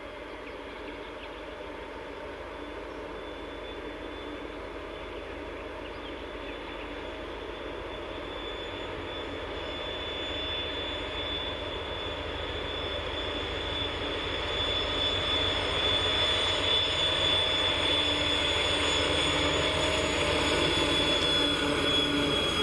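TEP70 diesel locomotive's turbocharger whistling, a steady high whine over the V16 diesel's rumble, growing steadily louder as the locomotive approaches, with the whistle dropping slightly in pitch near the end.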